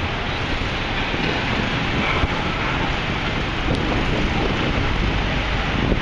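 Steady outdoor city noise: wind buffeting the microphone over a constant rumble of street traffic, with no distinct events standing out.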